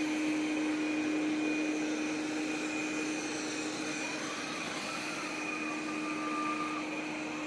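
Robot vacuum cleaner running on medium suction: a steady motor hum with a high whine, and a fainter wavering tone coming in about halfway through.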